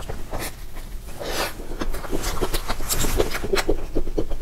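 Close-miked mouth sounds of eating soft mousse cake from a spoon: wet lip smacks and chewing clicks, coming quickly, about four or five a second, in the second half, with a short noisy hiss about a second and a half in.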